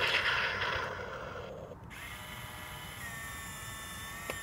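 Toy RC tank's BB-firing cycle: a loud hissing burst for about a second and a half, then a steady electric whine that rises briefly in pitch as it starts. A faint click comes near the end, just before the next shot.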